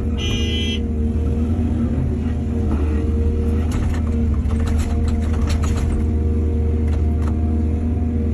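Excavator's diesel engine running steadily under load with a deep hum. A brief high-pitched squeal comes near the start, and a run of sharp knocks and rattles comes in the middle, with one more knock near the end.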